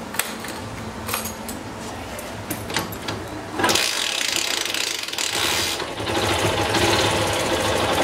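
Yamaha FZ single-cylinder motorcycle engine being cranked with mechanical clicking, catching about three and a half seconds in and running with a rev near the end. It runs with an ugly knocking sound, like a pot boiling when revved, which the owner takes to be a failing connecting rod.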